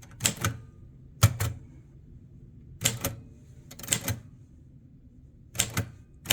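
Royal Quiet De Luxe manual typewriter being typed on slowly: keys and typebars striking the platen in short clusters of two or three quick clacks, about once every second or so.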